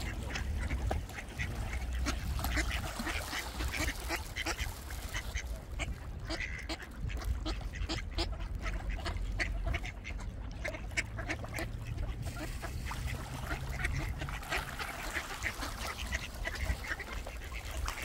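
A flock of ducks quacking in many short, rapid calls while squabbling and pecking at each other over food thrown to them, over a steady low rumble.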